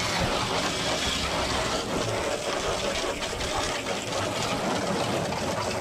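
Garden hose spraying water onto a dusty truck engine bay: a steady rush of spray.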